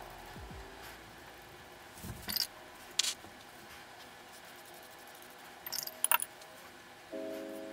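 A few light, sharp clinks and taps of painting tools as a brush is rinsed and loaded with gouache, spread out over several seconds. Soft piano music comes in near the end.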